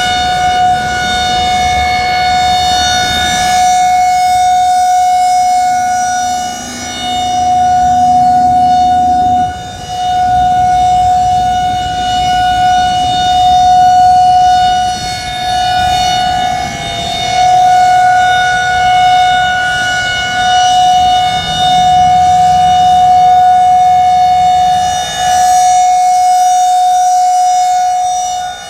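Federal Signal 2001-130 rotating outdoor warning siren sounding its steady Alert signal: one held pitch with no wail, swelling and fading in loudness every several seconds as the rotating head turns.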